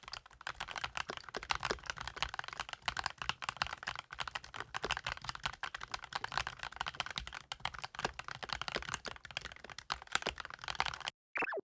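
Fast, continuous typing on a CIDOO ABM098 gasket-mounted mechanical keyboard with CIDOO Blue-Through switches, a dense run of keystrokes. The typing stops just before the end, and a short falling tone follows.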